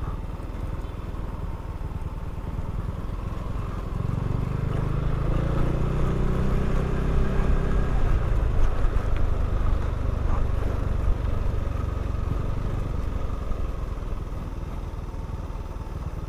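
Motorcycle engine running on the move over a steady low rumble. The engine note grows louder from about four seconds in and eases off again after about twelve seconds.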